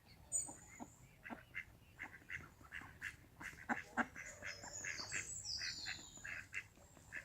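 Ducks quacking on a lake, many short calls repeated throughout, fairly faint. A higher-pitched falling bird call sounds around five seconds in.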